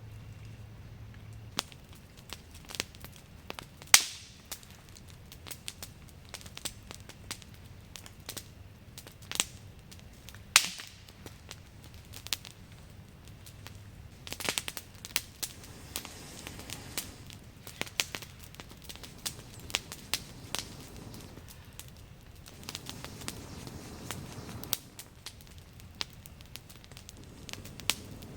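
Wood campfire crackling, with irregular sharp pops and snaps of burning wood; the loudest pops come about 4 and 10 seconds in.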